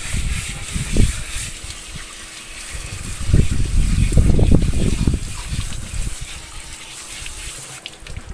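Garden hose spray nozzle hissing as it rinses a wet dog's coat over a plastic grate, with louder low splashing and rumbling for a couple of seconds in the middle. The spray stops shortly before the end.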